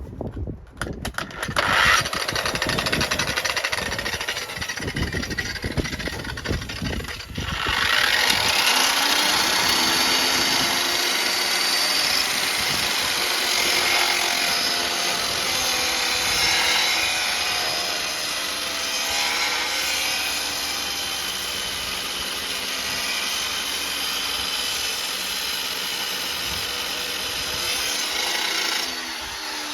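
9-inch angle grinder running, then cutting through the drain pipe from about seven seconds in with a steady, loud grinding that eases off just before the end.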